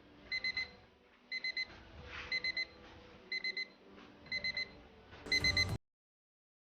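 Digital alarm clock's alarm beeping in groups of four quick high beeps, one group about every second, over faint background music. It cuts off suddenly near the end.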